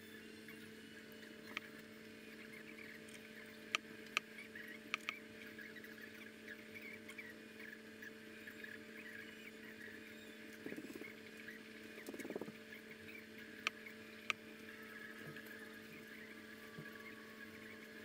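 Faint scratching of an electric wood-burning pen's hot tip moving across wood, over a steady low electrical hum. A few sharp clicks and two short rasps occur partway through.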